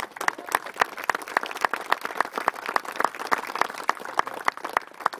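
A crowd applauding, with one clapper close by standing out at about three to four claps a second.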